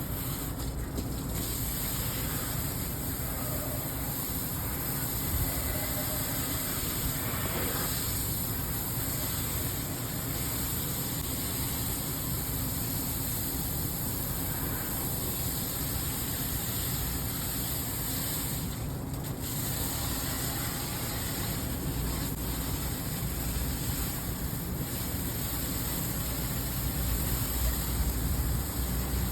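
Water from a garden hose spraying steadily onto the fins of an air-conditioner condenser coil, washing the dirt out, as a continuous hiss. A low wind rumble on the microphone builds near the end.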